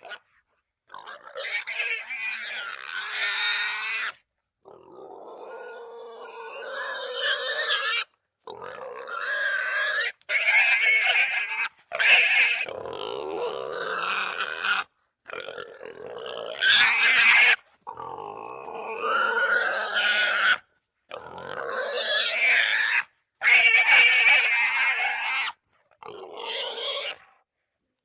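Wild boar calls, played as a run of short separate recordings of about one to three seconds each, cut apart by sudden silences. Several of the calls are high-pitched.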